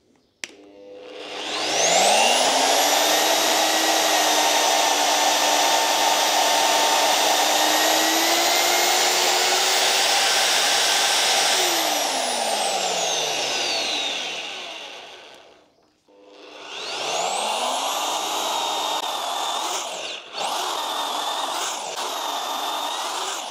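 Magnetic core drill's motor spins up with a rising whine and runs steadily while its annular cutter drills a steel tube. It then winds down to a stop, starts up again and runs on, with a brief break near the end.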